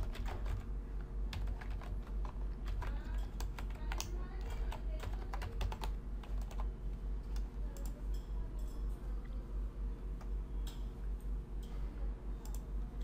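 Typing on a computer keyboard: a quick run of key clicks that thins out after about six seconds, over a steady low hum.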